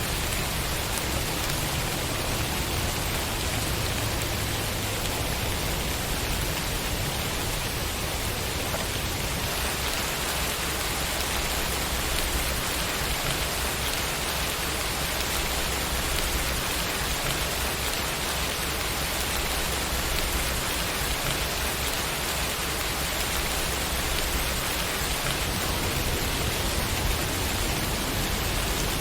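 Steady rain falling, an even hiss of many drops on a surface. There is no thunder and no sudden sounds.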